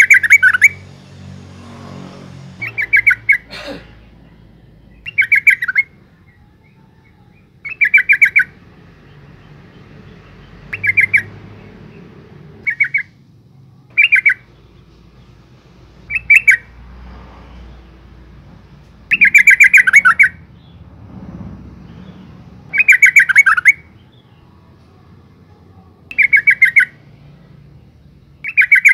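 Yellow-vented bulbul calling in short bursts of rapid chattering notes, one burst every two to three seconds. It is a female's call, used as a lure to set male bulbuls calling.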